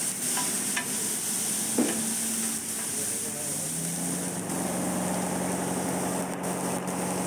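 Chopped onions, green chillies and tomatoes sizzling on a large flat griddle, with a metal spatula now and then scraping and tapping the hot surface. A steady low hum comes in about three and a half seconds in.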